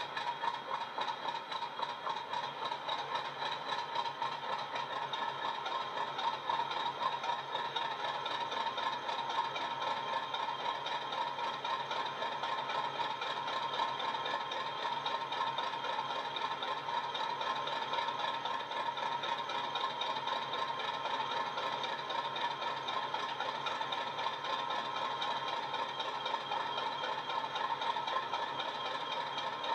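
Recorded Class 50 diesel engine sound played by a LokSound 5 DCC sound decoder through the small speaker of a Hornby model locomotive, running at a steady idle with a knocking rattle partway through a long cold-start sequence. The sound is thin, with no deep bass.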